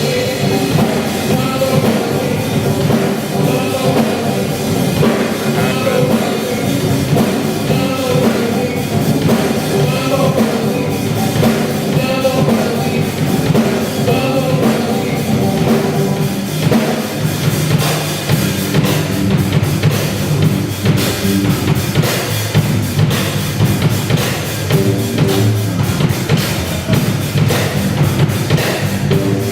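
Live band playing a song, with a drum kit keeping the beat under bass and other instruments.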